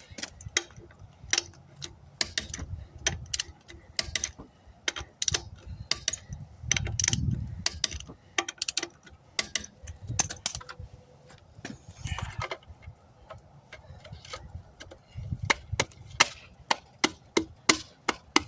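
Torque wrench ratcheting on wheel lug nuts as they are tightened, a run of sharp clicks that settles near the end into a steady rhythm of about three a second. Low handling rumbles come and go in between.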